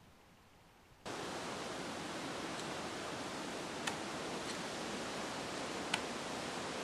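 A steady rushing hiss begins about a second in. Over it come two short, sharp clicks about two seconds apart, the second louder, with a couple of fainter ticks between: thrown knives striking a tree trunk.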